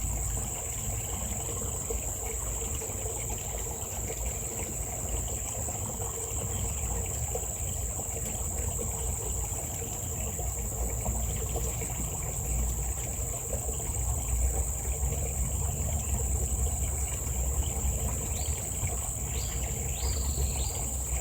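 Insects keep up a steady high-pitched drone over a low steady rumble. A few short rising chirps, like a bird's, come near the end.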